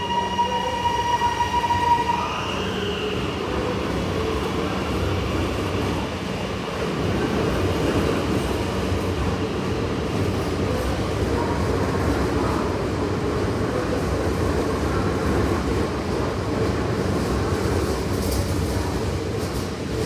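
Electric suburban train running along the platform, a steady rumble of wheels and running gear. A high, steady tone sounds over it for the first two seconds and then stops.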